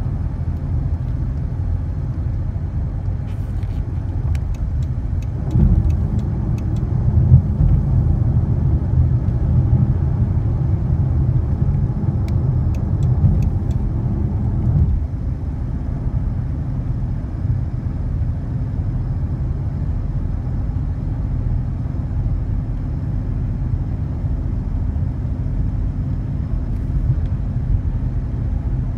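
2012 Chrysler 300 SRT8's 6.4-litre Hemi V8 running while the car is driven, getting louder under acceleration from about five seconds in and easing off around fifteen seconds. Under load it makes a light ticking or tapping, the sign of a worn lifter that has eaten into a camshaft lobe.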